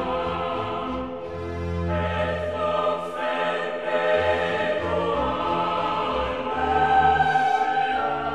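Choral music: voices singing slow, held chords over low notes that change every second or so, swelling a little near the end.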